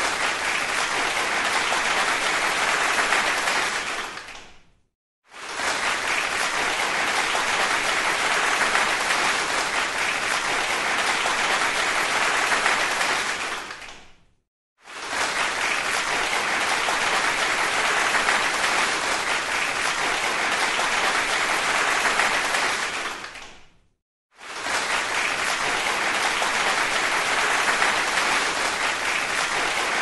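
Applause: many people clapping in a dense, steady stream. It fades out three times, each time followed by a brief silence and an abrupt restart, as a roughly ten-second applause recording is looped.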